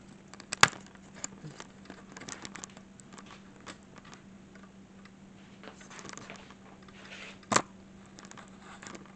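Handling noise as the camera is picked up and moved around the kitchen: scattered light clicks and rustling, with two sharp knocks, one about half a second in and one near the end, over a faint steady hum.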